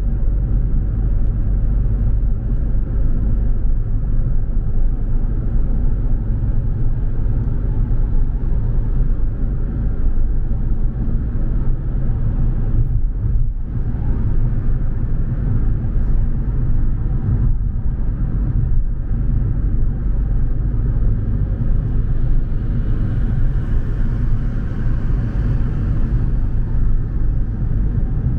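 A car driving on the road: a steady low rumble of engine and tyre noise. For a few seconds near the end a brighter hiss rises above it.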